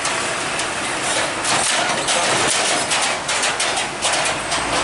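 Heavily loaded truck crossing a railway level crossing: its engine running while its wheels and body give an irregular run of sharp knocks and clatters going over the rails.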